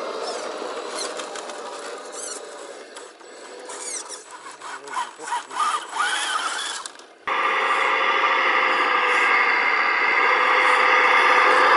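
Small electric motors and gear trains of RC scale crawler trucks whining as they climb over dirt and rocks, the pitch rising and falling with the throttle, with a few clicks from the drivetrain. About seven seconds in it cuts abruptly to a louder, steadier whine from a truck driving right over the microphone.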